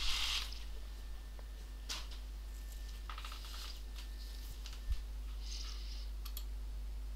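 Rustling and handling of a cardboard box of nitrile gloves being moved and set down, followed by a few faint clicks, light hissy handling noises and a soft low thump about five seconds in, over a steady low hum.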